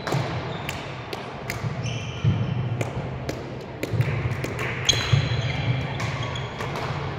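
Badminton rally: a string of sharp racket strikes on the shuttlecock, with short squeaks of court shoes and thuds of players' footfalls between them.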